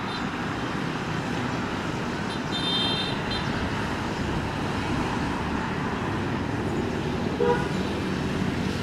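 Steady engine noise of airport ground vehicles running on the apron. A short high tone sounds about three seconds in, and a brief lower tone comes near the end.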